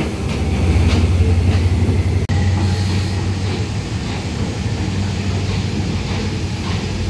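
Train running, a steady low rumble with a few faint clicks in the first couple of seconds; the sound drops out for an instant a little over two seconds in.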